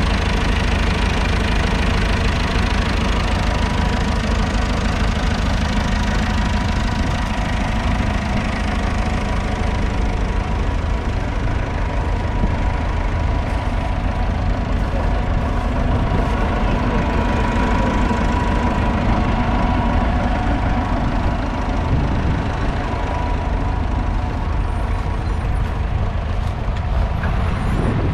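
Massey Ferguson 165's 3.5-litre four-cylinder diesel engine idling steadily.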